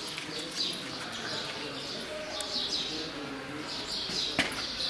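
Small birds chirping in quick, repeated high calls, with a single sharp click near the end.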